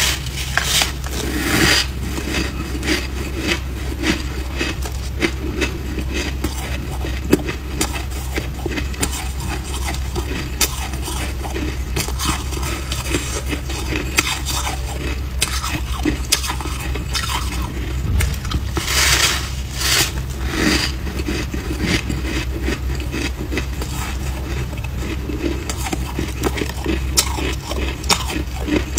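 Close-up crunching and chewing of a chunk of compacted white freezer frost. There is a steady crackle of small crunches, with louder bites near the start and again about two-thirds of the way through, over a low steady hum.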